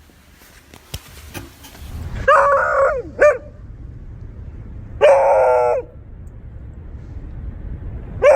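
Beagle barking: a drawn-out bark followed at once by a short yip, a second long bark a couple of seconds later, and a third just at the end.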